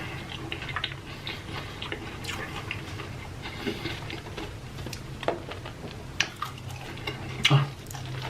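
Eating sounds close to the microphone: chewing and mouth noises with scattered small clicks and taps of food and containers, a louder click near the end, over a steady low hum.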